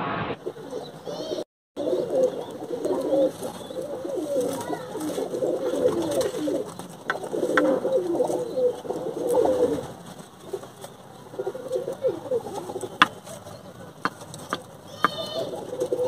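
Domestic pigeons cooing repeatedly, low warbling coos following one another through the whole stretch, with a few faint clicks.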